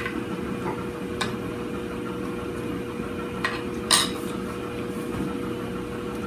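A few light clicks of tableware, the loudest about four seconds in, over a steady hum.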